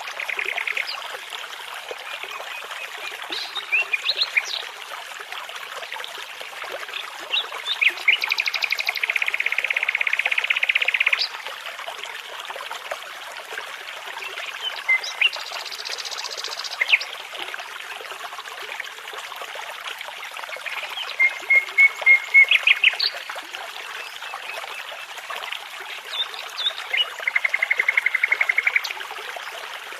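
Songbirds singing over the steady rush of a babbling brook: scattered short phrases and several rapid trills. The loudest is a run of repeated notes about two-thirds of the way through.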